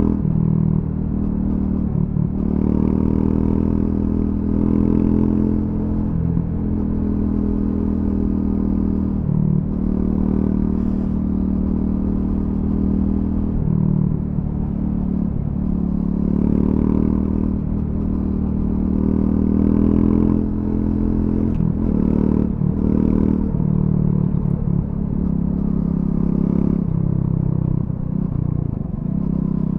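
Triumph Scrambler 400X's single-cylinder engine through its stock exhaust, ridden at low to moderate speed. The revs rise and fall again and again as the throttle is rolled on and off, with short dips where the rider changes gear.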